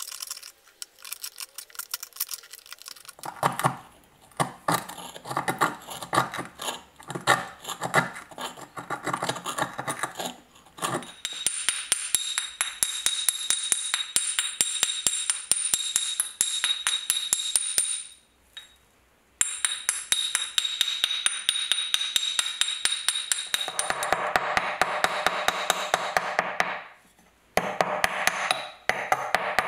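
Steel chisel chipping and scraping flaky rust scale off a very rusty old hammer head, in quick repeated metal-on-metal strokes with rust flakes falling. Near the end a small hammer taps the chisel against the rusty head in rapid strikes.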